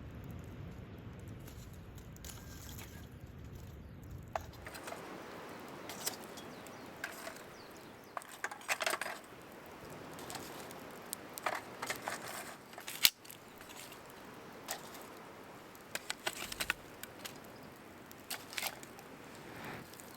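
Camp cooking gear being handled: scattered light clicks, clinks and taps, with a short cluster of clatter about nine seconds in and one sharp click about thirteen seconds in. A low steady rumble underlies the first few seconds.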